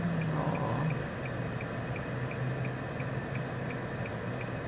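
A car's hazard-light flasher clicking steadily, about three clicks a second, inside the cabin over a low steady hum.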